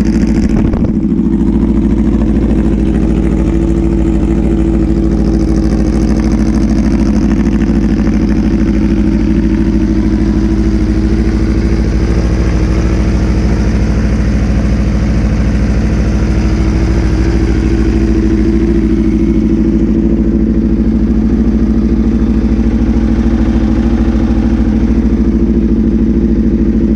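2016 Aprilia RSV4 RR's V4 engine idling steadily.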